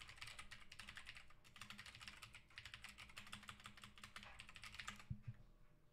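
Faint, rapid typing on a computer keyboard, quick runs of keystrokes with short pauses between them, stopping about five seconds in.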